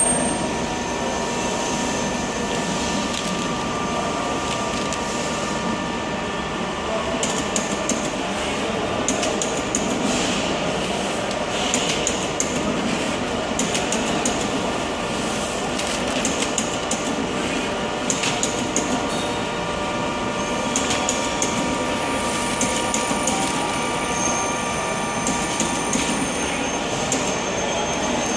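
Traversing thermal transfer overprinter on a packaging line running: steady machine noise with a few steady whining tones and frequent short clicks as the print carriage moves and prints.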